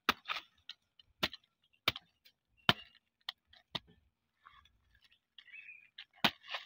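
Machete chopping a banana stalk into pieces for cattle feed: sharp chops, four in the first three seconds at a steady pace, a softer scratchy rustle after a pause, then one more chop near the end.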